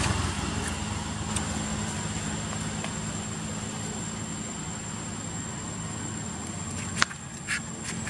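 A motor vehicle's engine running steadily, easing off a little after the start, with a thin steady high tone above it. A single sharp click comes about seven seconds in.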